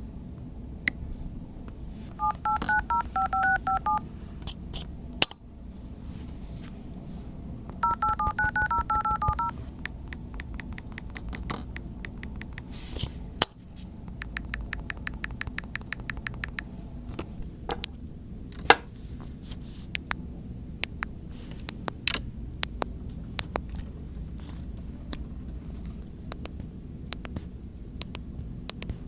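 Phone keypad dialing tones from a smartphone speaker: two quick runs of about ten two-tone beeps each, a few seconds apart, followed by scattered sharp clicks over a steady low hum.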